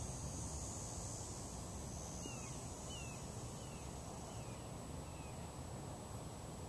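A bird calling a series of about five short, falling notes, evenly spaced, over a steady low rumble and a high buzz that fades out about halfway through.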